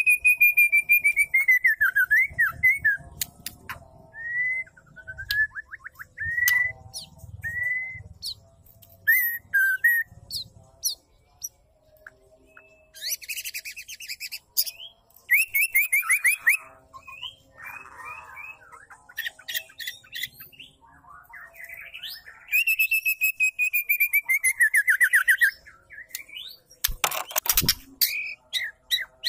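Female white-rumped shama singing: a varied run of whistled phrases, some long descending series, mixed with fast clicking trills and sharp rattling ticks, broken by short pauses.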